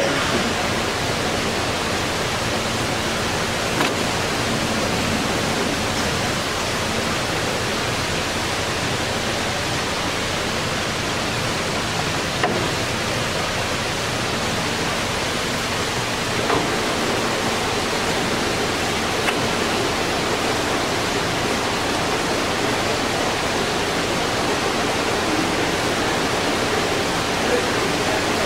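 LeBlond ND engine lathe running under power, its spindle and chuck turning: a steady hiss and hum from the headstock gearing, with a few faint clicks and a slight change in tone a little past halfway.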